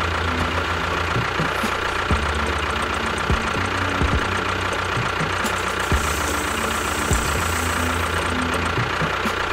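Tractor engine running steadily in a low chugging idle, with a thin steady whine above it and a sharp knock every second or so.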